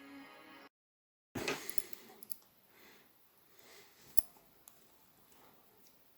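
Background music that cuts off less than a second in, then a moment of dead silence, followed by scattered light clicks and taps of small toy-car parts being handled, the sharpest cluster just after the silence and one more click about four seconds in.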